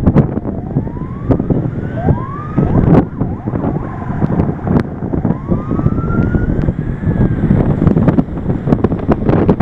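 Car driving along a wet highway: loud road and wind noise with irregular knocks, and a siren wailing faintly over it, its pitch rising and falling several times.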